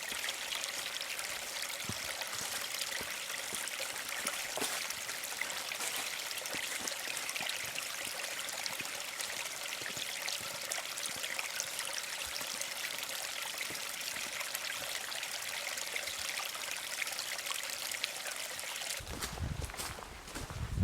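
A small stream flowing, a steady trickling rush of water. About two seconds before the end it breaks off into a lower, uneven rumble.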